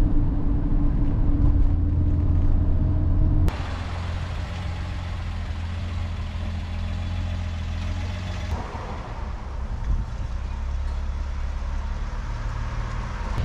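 Nissan Skyline C110 "Kenmeri" running on the road: a steady engine drone with road noise. The sound shifts abruptly to a quieter, different tone about a third of the way in, and shifts again past halfway.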